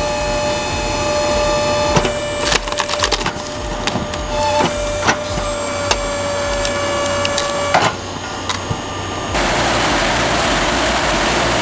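Wood cracking and splintering in a wood-processing machine, with repeated sharp cracks over a steady whine. About nine seconds in it gives way to a dense, even rushing noise of material being chipped.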